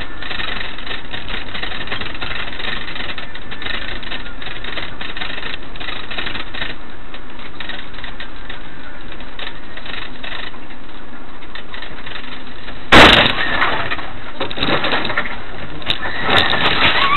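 Steady road noise of a moving vehicle, then late on a sudden loud crash of a vehicle collision, a hard impact with crunching and breaking that trails off over about a second.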